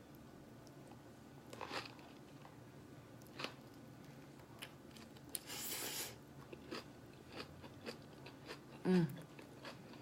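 A person chewing and biting into a large vegan Thai spring roll close to the microphone, with scattered small crunches and mouth clicks. A short hiss comes about halfway through, and a brief low hum near the end.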